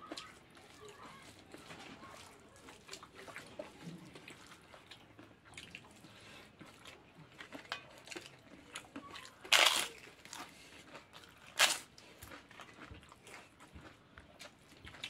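Close-up eating sounds: soft chewing and lip smacks, with two loud, short crunches about ten and twelve seconds in as a piece of crisp fried papad is bitten.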